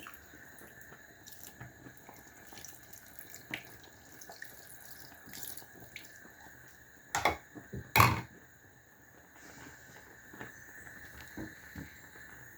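Kitchen sounds while cooking: scattered light drip-like ticks over a faint steady hiss, with two louder knocks about seven and eight seconds in.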